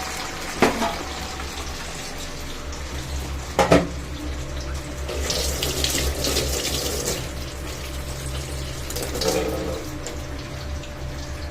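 Chicken pieces deep-frying in hot groundnut oil: a steady sizzling hiss with crackle, with two sharp knocks, about a second and about four seconds in.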